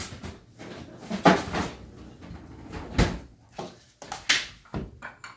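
Several separate clunks and knocks, the sharpest about three seconds in: a refrigerator-freezer door being opened and shut and a tub of ice cream being handled.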